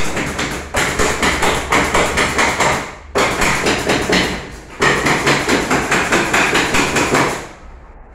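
Pneumatic fastening gun firing rapid strings of shots, several a second, into a treated-wood frame, in three runs with short pauses between them.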